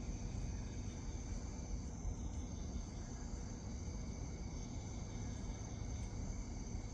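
Steady night chorus of crickets, an unbroken high-pitched chirring, over a constant low rumble.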